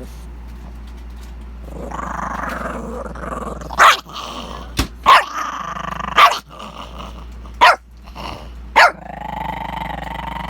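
Puppy growling, broken by five sharp barks about a second apart, then growling again.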